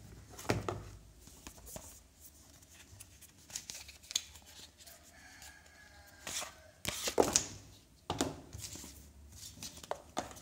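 Hands handling a smartphone box's cardboard packaging: a cardboard tray insert and a paper envelope rustling and scraping in scattered short bursts, the loudest about seven seconds in.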